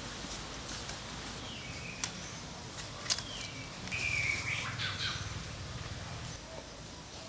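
Birds chirping: a short whistled call about a second and a half in and a louder, longer one with falling notes about four seconds in. Two sharp knocks of bamboo poles being handled, about two and three seconds in.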